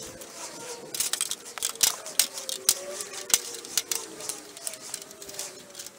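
Irregular sharp clicks and light metallic taps, several of them loud, from about a second in: a steel sill repair panel shifting and knocking against the metal deck of a car trailer as it is handled.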